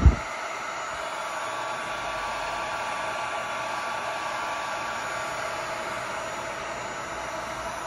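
Wagner electric heat gun running steadily, a fan-driven rush of hot air with a faint steady whistle, as it heats the end of a plastic suction hose. A brief low thump comes right at the start.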